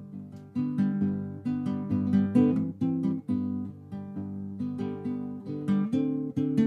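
Background music: acoustic guitar being plucked and strummed.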